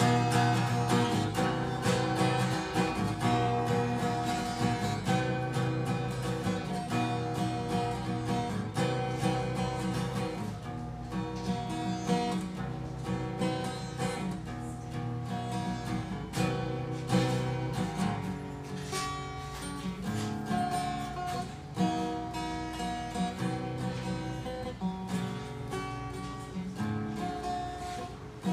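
Solo acoustic guitar strummed in repeated chords, an instrumental passage without singing, growing gradually softer.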